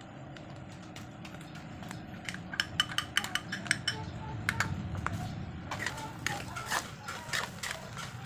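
Metal spatula clinking and scraping against a large metal frying pan as chopped bopis and vegetables are stirred, starting a couple of seconds in and getting busier toward the end.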